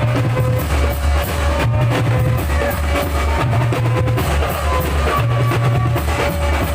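Loud music with a drum beat and a low bass line repeating about every one and a half to two seconds, over held melodic tones.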